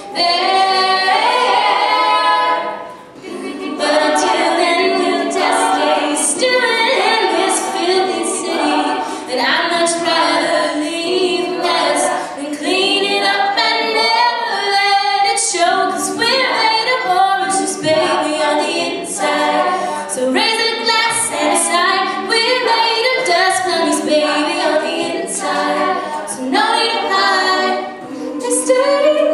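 All-female a cappella group singing, a solo voice out front over the backing voices of the rest of the group, with a brief drop in volume about three seconds in.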